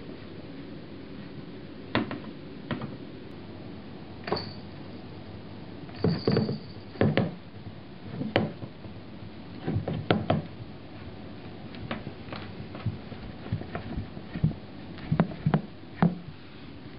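Irregular knocks and thumps, some in quick pairs, from a Richardson's ground squirrel jumping and bumping about inside an upturned wastebasket.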